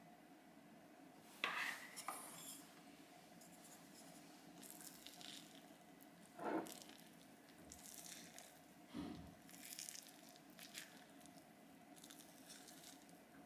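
Wooden spatula stirring thick, sticky sourdough starter (levain) in a glass jar: faint soft squishing and scraping, with a few louder scrapes or knocks against the glass.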